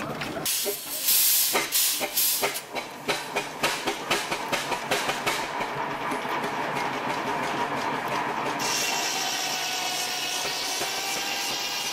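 1926 Burrell traction engine running steam on the belt, its exhaust beating about four to five times a second, then settling into a steady hiss of steam in the second half.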